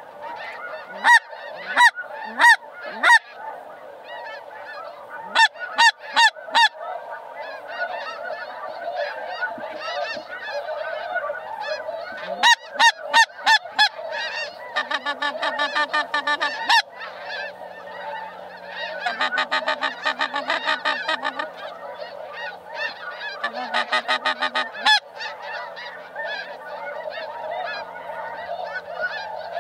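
A large flock of snow geese calling overhead: a dense, continuous chorus of high honks. Louder sharp calls stand out in short runs of three to five, and there are a few stretches of rapid, buzzy calling.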